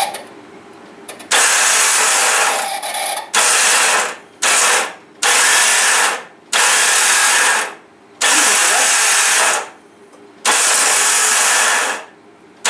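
Starter motor of a Mitsubishi Chariot operated in about seven short bursts, each spinning loudly while barely turning the engine over. The starter is slipping as it engages, which the mechanics put down to either the starter itself or a damaged flywheel ring gear.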